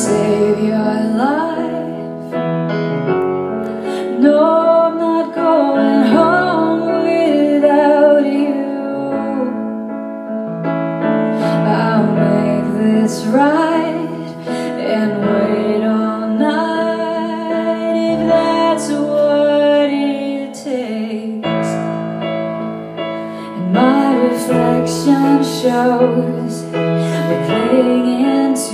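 A woman singing a slow ballad live, accompanied by a keyboard playing sustained piano chords.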